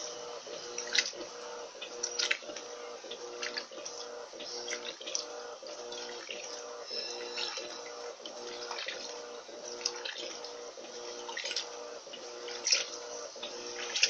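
Electrolux Turbo LT12B top-loading washing machine washing a load at its high water level. The motor hum pulses in a quick, even rhythm as the clothes are churned, with water sloshing and splashing every second or so.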